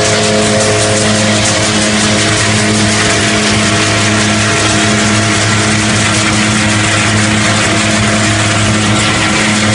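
Önal Makine FPM 1500 hazelnut threshing machine running: a steady drive hum under a dense, even hiss and rattle of husks and nuts passing through the drum and over the shaking sieves.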